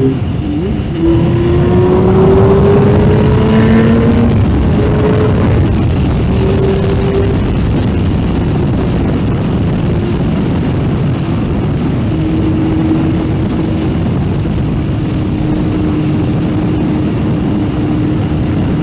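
Yamaha Fazer 600's inline four-cylinder engine under way, its pitch rising steadily for a few seconds as the bike accelerates, dropping back as it shifts up, then settling to a steady note at cruising speed. Heavy wind and road noise run underneath.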